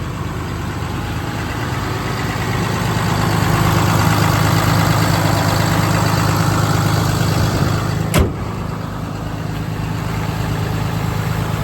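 Cummins 6.7-litre inline-six turbo-diesel idling steadily, growing louder for a few seconds in the middle. A single sharp knock about eight seconds in.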